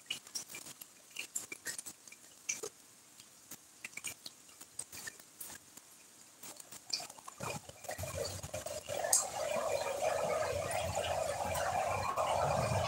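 Rain pattering and dripping close by, heard as scattered sharp taps. About eight seconds in, a louder, steady rushing sound with a low rumble comes in and holds.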